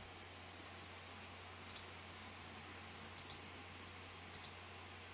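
Faint computer mouse clicks, three of them, each a quick press-and-release pair, over a low steady hum and hiss.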